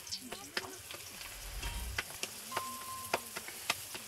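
Flatbread frying in oil in a shallow pan, with a steady sizzle, the scrape of a spatula turning it, and scattered sharp taps.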